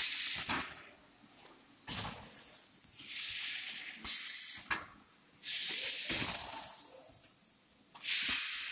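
Compressed air exhausting from the pneumatics of an automatic high-frequency PVC bag welding machine as it cycles: about seven sharp hisses, each starting suddenly and fading within a second.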